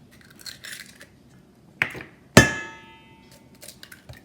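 An egg being cracked on the rim of a bowl: a knock, then about half a second later a sharp clink that leaves the bowl ringing for about a second.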